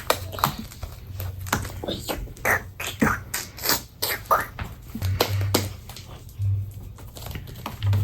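Homemade slime mixed with shaving cream being kneaded and squeezed by hand, giving an irregular run of wet clicks and sticky pops.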